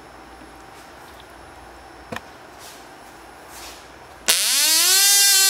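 Cox Tee Dee .010 model glow engine being spun over by an electric starter to start it. A loud, high-pitched buzzing whine starts suddenly about four seconds in and climbs quickly in pitch.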